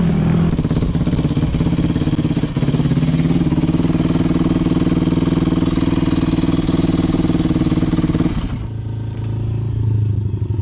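Yamaha YZ250 dirt bike engine running loud at a steady speed, then about eight and a half seconds in the revs drop and it settles to a lower idle as the bike pulls in and stops.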